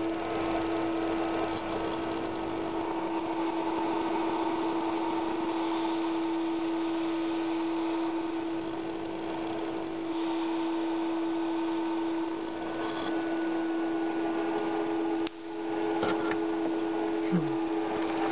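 Steady electrical hum at one pitch over a hiss, from an audio-driven coil water heater running; the sound drops out briefly about fifteen seconds in, then resumes.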